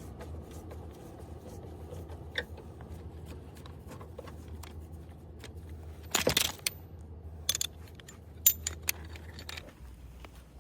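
Metal tools and brake parts clinking and rattling as they are handled, with a few sharper, louder clinks between about six and nine seconds in, over a steady low hum.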